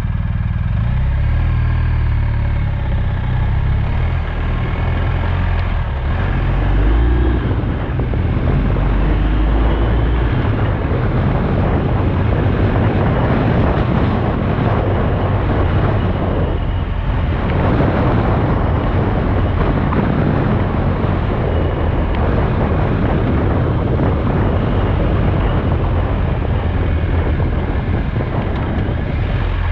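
Motorcycle engine pulling away, its pitch changing in steps during the first ten seconds or so. After that, wind rushing over the camera microphone and road noise take over while the bike rides along.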